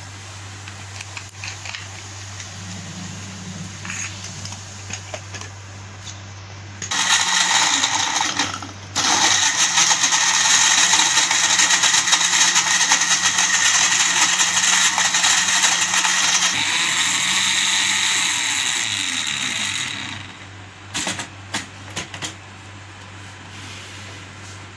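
Panasonic juicer-blender motor running with mint leaves and liquid in the glass jar, starting at full speed about seven seconds in with a steady low hum before it. It cuts out for a moment just before nine seconds, runs again until about twenty seconds and then stops. A few sharp clicks follow.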